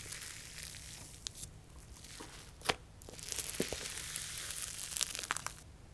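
Thick icy slime being poked and stretched in its plastic tub by fingers, making a crinkly, crackling sound with several sharp pops; the crackling thins out in the middle and comes back louder in the second half.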